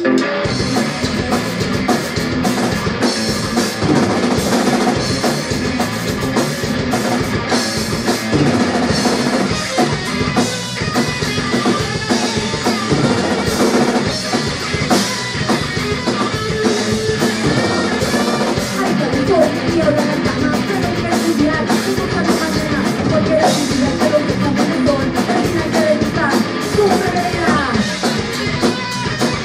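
Live rock band playing loudly: a drum kit pounding out a steady beat under electric guitar and bass guitar.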